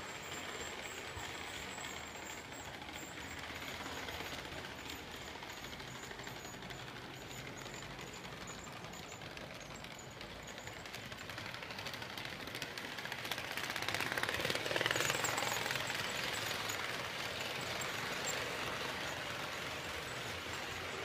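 HO scale model freight train of tank wagons running past on the track, a steady fast clicking rattle of wheels on rail, growing louder to a peak about fourteen to sixteen seconds in as the train passes closest.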